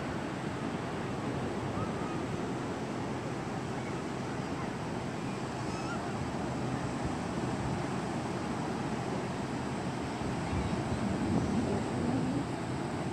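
Steady wash of distant surf breaking on a sandy beach, with wind buffeting the microphone; it swells slightly near the end.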